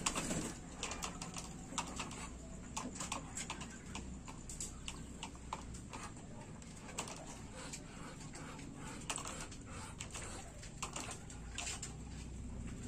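Muscovy ducks and chickens moving about on a gravelly pen floor, giving irregular light clicks and taps, with a short flurry of wingbeats right at the start.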